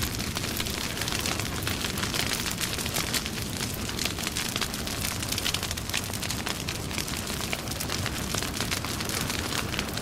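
Wood fire burning: dense, irregular crackles and snaps over a steady hiss of flame.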